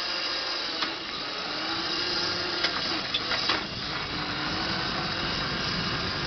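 Riding lawn tractor converted to electric drive, moving along pavement while hauling a load of about 200 lb: a steady mechanical whir of its drivetrain and gears, with a faint motor tone that drifts in pitch. A few sharp clicks and rattles come in between about two and a half and three and a half seconds in.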